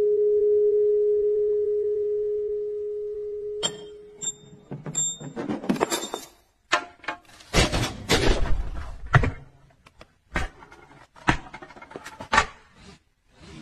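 Honda Accord car parts in a chain reaction. A ringing metal tone holds steady and fades over about the first four seconds. Then comes an irregular run of clinks, knocks, rolling and thuds as metal parts and wheels strike and roll against one another on a wooden floor, with brief silent gaps between.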